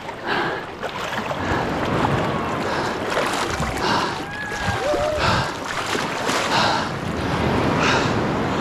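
Shallow seawater splashing and sloshing, with regular splashes about every two-thirds of a second, like wading steps, over the wash of small waves and wind on the microphone.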